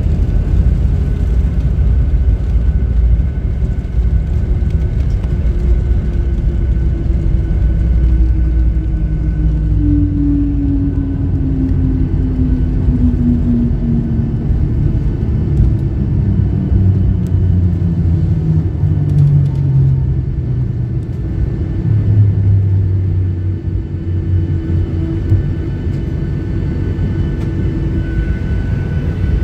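Boeing 737-800 heard from the cabin during the landing rollout: a loud, steady low rumble from the runway, with the CFM56 engines winding down out of reverse thrust, their hum falling slowly in pitch over a quarter of a minute as the jet slows.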